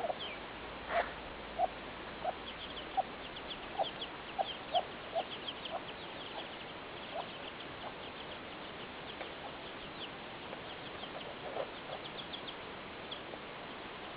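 A hen clucking in a series of short low clucks, busiest in the first half, with chicks cheeping in many short, high, falling peeps over it.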